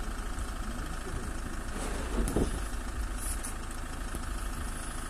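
A vehicle engine idling steadily, with a brief louder noise a little over two seconds in.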